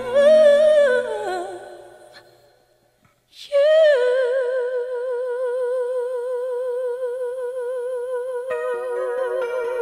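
A solo voice singing unaccompanied: a short phrase that rises and falls and fades away, a brief silence, then one long note held for about six seconds with a steady vibrato.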